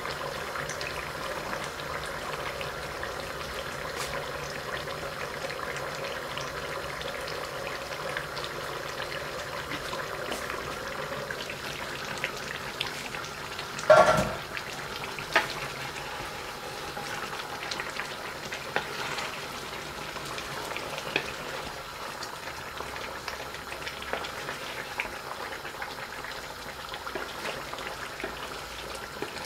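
Duck karahi sizzling and simmering in an iron karahi over a gas flame, a steady hiss. About halfway there is one loud ringing metal clank as the steel lid comes off, and near the end light knocks and scrapes of a wooden spatula stirring.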